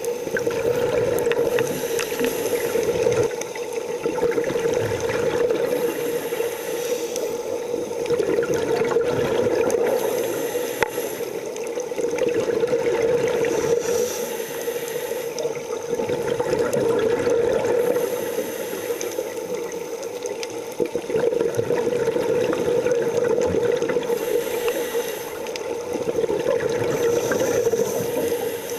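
Scuba regulator breathing underwater: a hiss on each inhale and bubbling on each exhale, rising and falling every few seconds over a steady hum.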